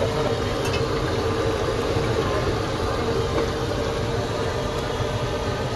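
A steady engine-like rumble with a constant hum, unchanging throughout.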